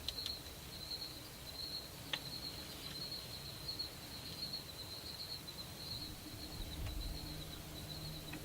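Faint outdoor insect chorus: a steady, high, pulsing trill. A single soft click comes about two seconds in, and a faint low hum joins near the end.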